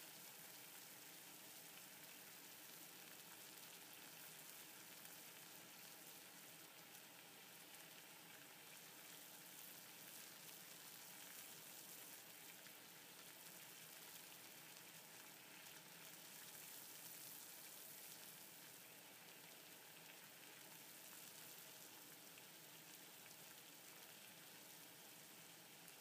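Water at a rolling boil in a stainless steel pot, making a faint, steady hiss.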